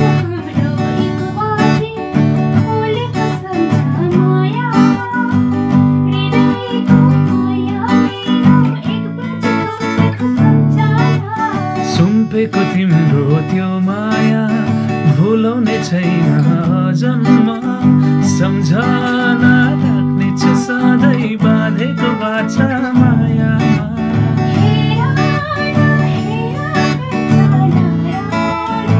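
Acoustic guitar strummed in steady chords with a man singing along; the singing comes in a few seconds in and drops out for short stretches, leaving the guitar alone.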